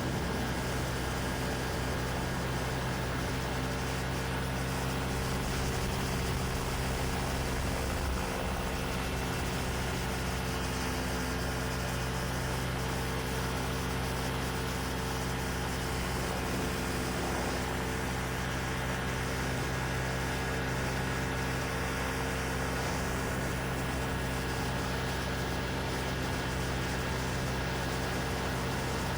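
Quicksilver MXII ultralight's engine and propeller running steadily at a constant speed.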